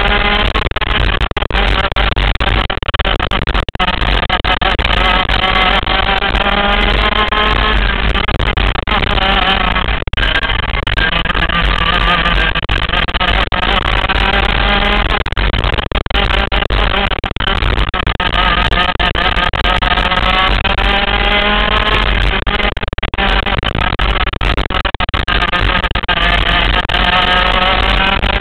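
100cc racing kart engine heard from the driver's seat, its pitch climbing in long rising sweeps along the straights and dropping back as the driver lifts for the turns, several times over, with a steady low rumble underneath.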